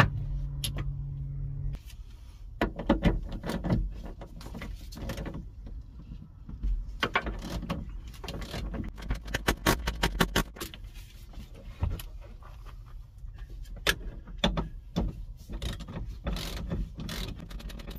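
Ratchet wrench with a T50 Torx bit working a car's seat belt anchor bolt: bursts of rapid, evenly spaced ratcheting clicks, the densest run about seven to ten seconds in, between knocks of the tool against the fitting.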